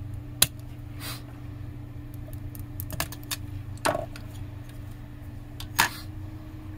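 Scattered small metallic clicks and clinks, about five, from handling a cassette deck's metal plate and tiny screws during reassembly, over a steady low hum from a computer's CPU fan.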